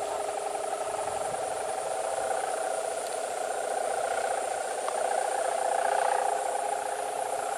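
Sendaren hummer on a 2-metre gapangan kite droning in the wind, with the deep 'ngungkluk' tone. It is a steady hum of several held notes with a fast, even throb, swelling a little about five to six seconds in.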